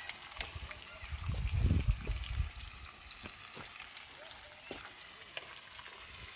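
Food sizzling in hot oil in a pan, with scattered sharp crackles. A low rumble comes in about a second in and lasts for about a second and a half.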